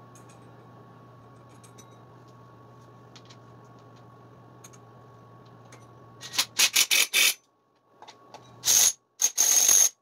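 Power tool, most likely a cordless impact wrench, running in a quick run of short bursts, then a short burst and a longer one near the end, tightening a nut on the scooter's CVT clutch. Faint ticks of parts being handled come before.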